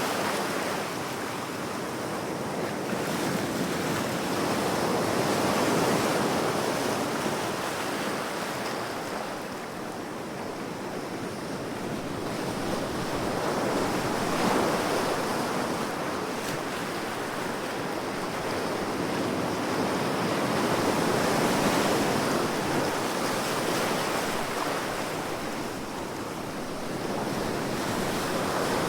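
Ocean surf: waves breaking and washing in, a continuous rushing that swells and eases every seven seconds or so.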